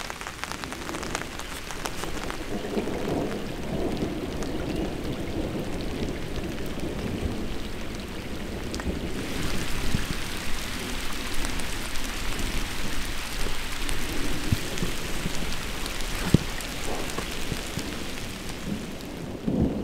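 Steady rain: first pattering and drumming on a tarp overhead, then, about nine seconds in, a brighter, even hiss of heavy rain falling on the surface of a lake.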